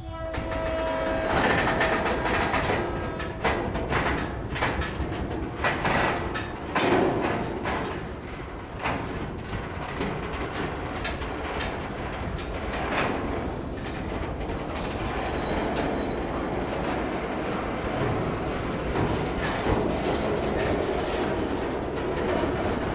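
Double-stack intermodal freight train's well cars rolling slowly past, wheels rumbling on the rails with irregular metallic clanks and bangs, most frequent in the first half. From about halfway through, a thin high squeal of wheels on rail runs under the rumble.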